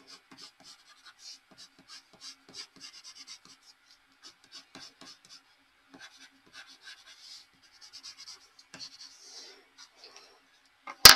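Colored pencil scratching over paper in quick, irregular shading strokes. A single sharp knock comes at the very end.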